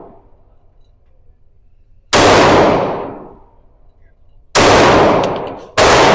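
Three gunshots from a firearm at a shooting range, the second and third about a second and a quarter apart, each ringing out over about a second. There are a few faint clinks just before the third shot.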